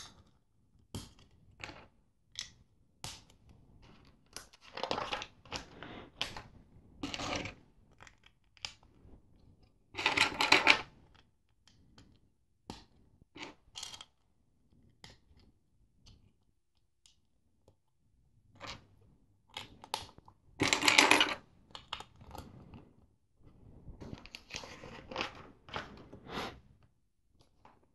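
Plastic LEGO bricks being handled and pressed together: scattered sharp clicks, with several rattling, rustling bursts of about a second as loose pieces are shuffled on the table.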